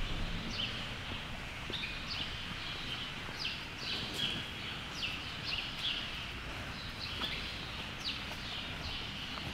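Small birds chirping, a string of short, quick downward-sliding chirps repeated throughout, over steady background noise in a large hall.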